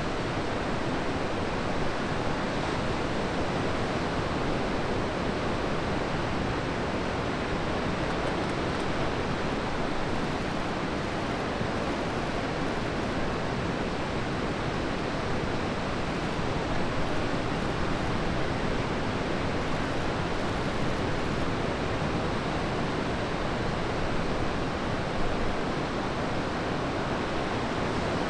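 Ocean surf breaking and washing in, a steady rush of noise with small swells in loudness.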